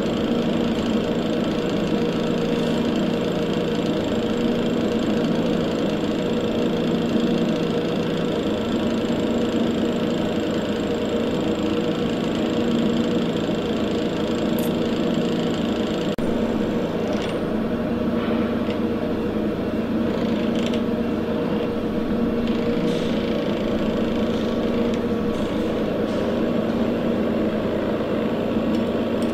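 Steady machine hum with a few faint clicks in the second half.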